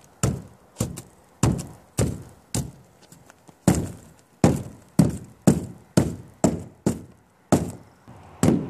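Claw hammer striking along a sailboat deck, chipping up wet balsa core from under the removed fiberglass skin: a rapid, uneven series of knocks, about two a second, with a short pause around three seconds in.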